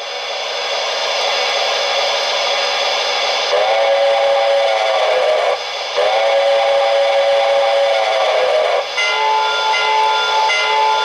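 Electronic sound system of a Lionel O-gauge PRR S2 steam-turbine model locomotive: a steady loud steam hiss, with a steam whistle blown twice, once for about two seconds and then again for nearly three. Near the end the whistle gives way to a steady pitched hum that cuts in and out at even intervals.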